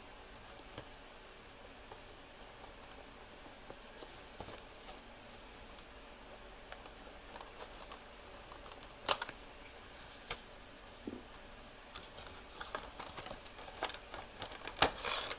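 Faint scattered clicks and rustles of small handling noises, with a sharper click about nine seconds in and a busier run of them near the end.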